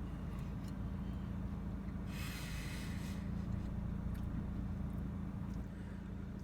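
A man breathes out hard through his nose once, a hiss lasting about a second, about two seconds in, while tasting a mouthful. A steady low hum sits underneath throughout.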